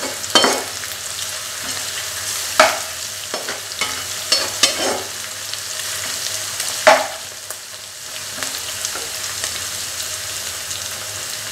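Sliced onions, green chillies and ginger-garlic paste sizzling in hot oil in a non-stick kadai, frying the paste. A spatula stirs and scrapes against the pan a few times, each stroke louder than the steady sizzle.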